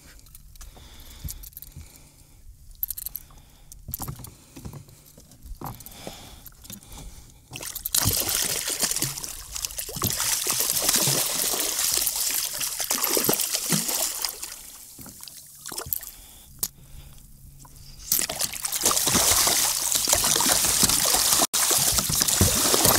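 Water splashing and sloshing as a hooked two-foot shark thrashes while being grabbed for unhooking. It comes in two long spells, about eight seconds in and again from about eighteen seconds, after a few light knocks and clicks.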